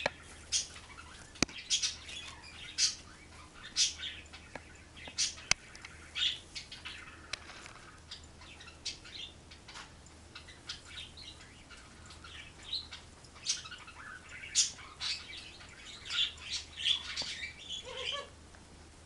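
A bird chirping and squawking in short, irregular calls, with two sharp clicks and a faint steady low hum underneath.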